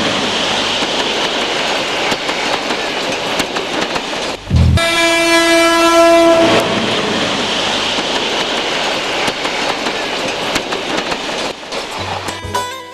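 A train passing close by: a steady rushing noise from the wagons with many quick clicks from the wheels on the track. About five seconds in, one train horn blast lasting about two seconds, the loudest part.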